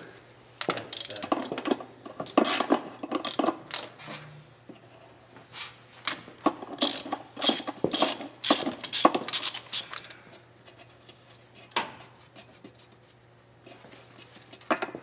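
Rapid metallic clicking and clinking of a socket wrench and tools working a homemade thread-chasing tap in a spark plug hole of the cast iron cylinder head, cleaning out carbon-mangled threads. The clicking comes in two runs of a few seconds each, with a single click later.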